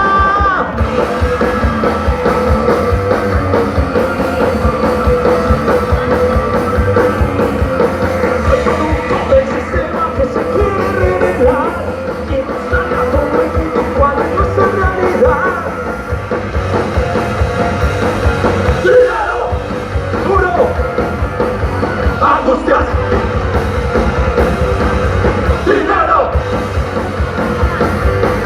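A band playing loud rock music live, with a dense pounding low end and sung and shouted vocals over it.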